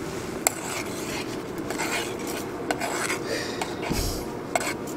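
A spoon stirring thick soup in a camping pot, scraping around the pot with a few sharp clinks against its side.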